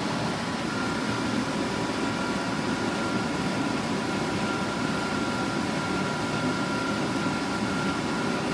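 Steady background hum of a running machine such as a fan, with a faint high whine.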